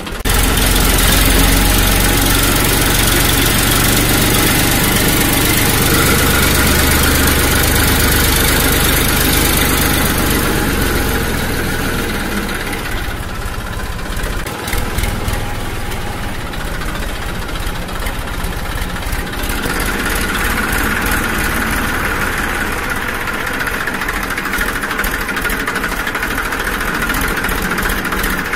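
An engine idling steadily, a little quieter and thinner in the middle stretch.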